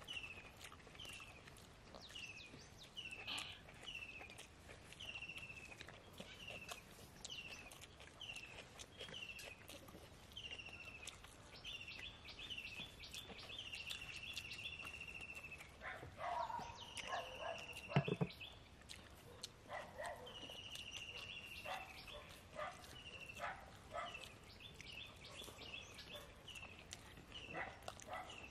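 An animal calling over and over: short high calls, each falling in pitch, about one a second, with a few longer drawn-out calls and bursts of rougher, lower calls about halfway through.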